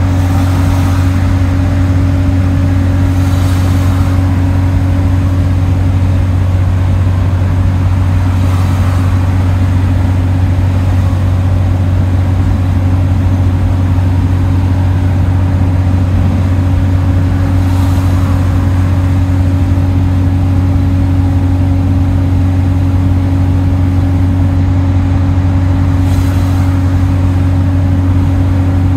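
Bus cruising at steady speed, heard from inside the passenger saloon: a constant low engine drone with road and tyre noise, and a few brief faint swells of hiss.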